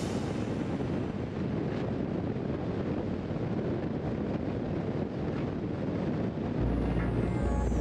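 Steady road noise of a car driving at highway speed: tyres on the road and wind on the microphone. Background music comes back in near the end.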